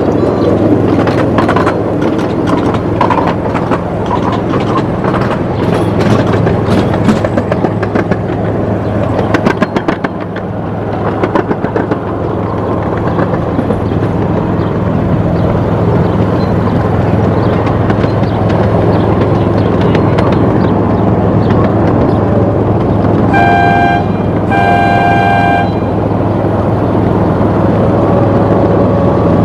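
Miniature ride-on train running along its track: a steady low hum and rumble, with wheels clicking rapidly over the rail joints in the first part. About three-quarters of the way in, its horn gives two short toots.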